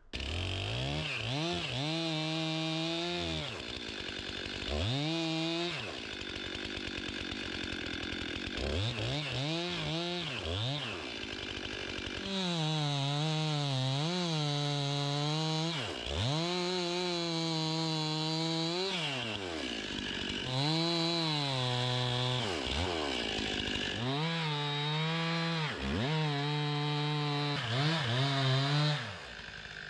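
Gas chainsaw felling a standing tree: the engine is throttled up into the cut and let back down to idle again and again, its pitch wavering and sagging as the chain bites into the trunk.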